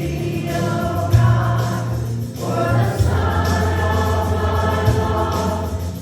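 A congregational worship song: voices singing over instrumental accompaniment, with held bass notes that change every second or two.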